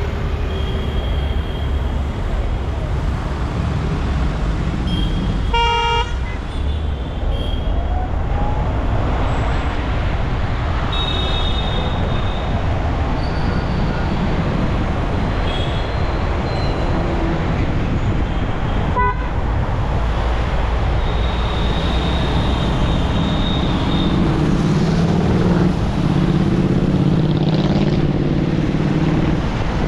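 City road traffic: a steady rumble of engines and tyres, with vehicle horns tooting several times, mostly short toots and one longer blast of about two seconds.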